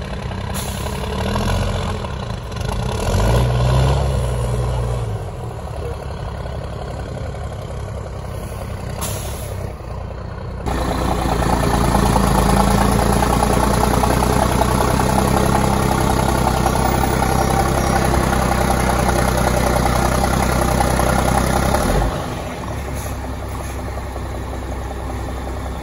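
MAN TGS 8x8 trial truck's diesel engine working under load in off-road mud. A short rev rises and falls a few seconds in, then the engine runs louder and steadily for about ten seconds before easing off near the end.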